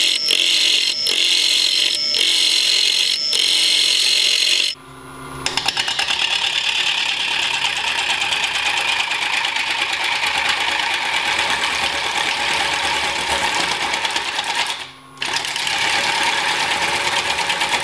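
A turning tool cutting a spinning block of hard, dry old barn-beam wood on a Powermatic wood lathe, heard as a steady hiss of shaving wood with a fast, even flutter. It breaks off briefly several times in the first few seconds, stops for about a second some five seconds in, and breaks again briefly near the end.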